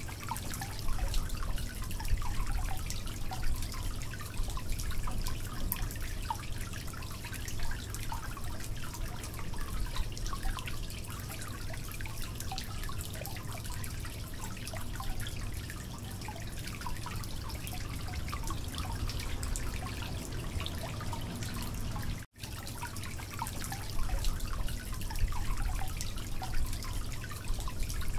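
Spice masala frying in hot oil in a steel karahi: a steady crackling sizzle with a low hum underneath. A wooden spatula scrapes and knocks against the pan as it is stirred, louder near the start and again after a short break about three-quarters of the way in, when potato cubes are being stirred in.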